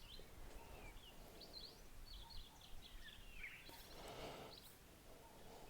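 Faint quick bird chirps, a run of short high calls, some sliding down in pitch, over quiet room tone, with a soft rustle about four seconds in.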